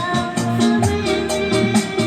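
Street buskers' live music: sustained instrument notes over a repeating bass line, with a shaker keeping a quick, even beat of about four to five strokes a second.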